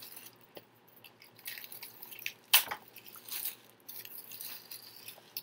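Clear plastic bag crinkling and rustling in scattered bursts as hands pull it off a small box, with one sharp crackle about two and a half seconds in.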